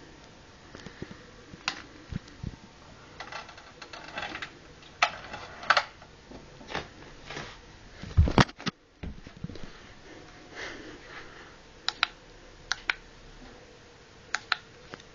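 Handling sounds: irregular light clicks and knocks, one heavy thump about eight seconds in, then three pairs of sharp clicks near the end.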